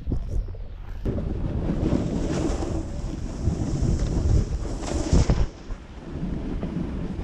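Wind buffeting the action camera's microphone while snowboarding downhill, a heavy rumble, with the hiss of the snowboard sliding and scraping over the snow. The sound changes about a second in and cuts off abruptly at the end.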